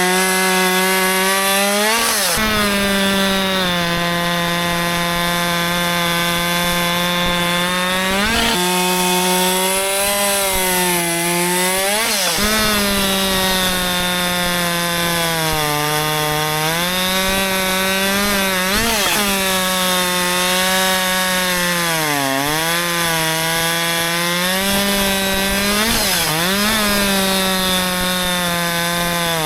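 Husqvarna 564 XP 62cc two-stroke chainsaw running hard, cutting wood. Its engine note sags and recovers as the chain loads up in the cut, with a brief sharp change in revs every few seconds.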